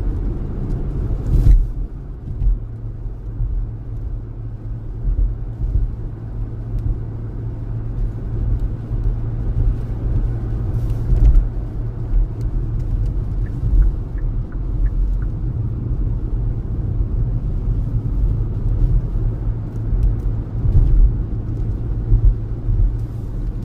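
A car driving on a snow-covered interstate, heard from inside the cabin: a steady low rumble of engine and tyre noise, with a brief knock about a second and a half in and another about eleven seconds in.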